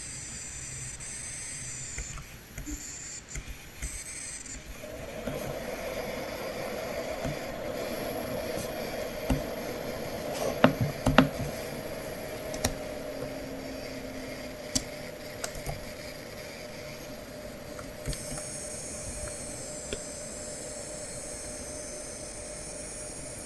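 Coil whine from an Asus ROG Zephyrus M16 gaming laptop's inductors under load: a high-pitched whine that breaks up and stops about four seconds in, giving way to a lower steady whine over a steady hiss, with the high whine coming back near the end. A few sharp clicks sound around the middle.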